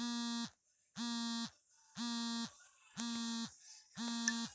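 Alarm clock buzzing: a harsh, steady-pitched buzz in half-second pulses about once a second, five times.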